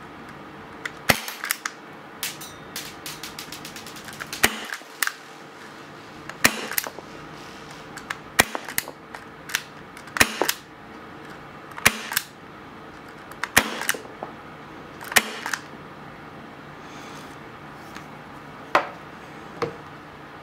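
KJ Works Mk-1 .22 Target Pistol SILENT EVO gas airsoft pistol firing eight shots into a chronograph, about one every two seconds. Each shot is a sharp pop followed by a few quick clicks. Two fainter clicks come near the end.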